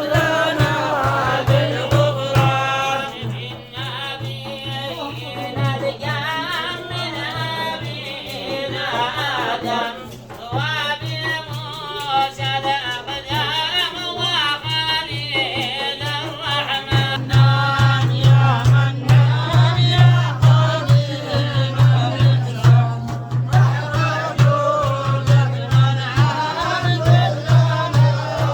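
A singer's voice chanting a melody over a steady, pulsing low beat that grows louder over the second half.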